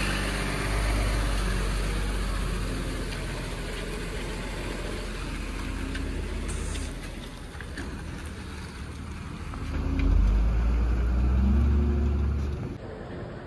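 Loaded heavy lorry's diesel engine running low and steady as the truck is moved. About ten seconds in the revs rise as it pulls away, then drop off near the end.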